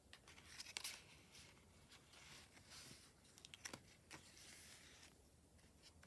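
Paper rustling and crackling as pages of a small handmade notebook made from used envelopes and paper scraps are handled and turned. A few sharper crackles stand out, the loudest about a second in.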